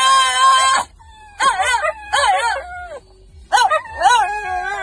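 French bulldog howling and whining. A long held cry breaks off within the first second, then shorter wavering yowls follow, and a new long howl starts about three and a half seconds in.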